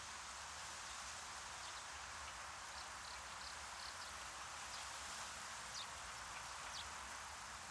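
Steady soft hiss of a background white-noise ambience track, with a few faint, short, high chirps scattered through it.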